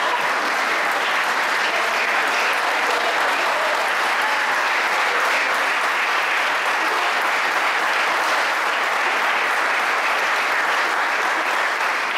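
Audience applauding steadily, a dense patter of many hands clapping at once that keeps an even level throughout.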